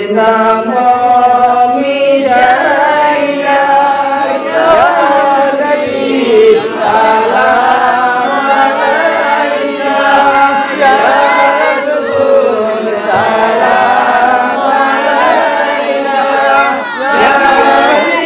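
A man sings a Bengali milad devotional salutation to the Prophet (salam) into a microphone in long, drawn-out sung lines, with a group of voices singing along.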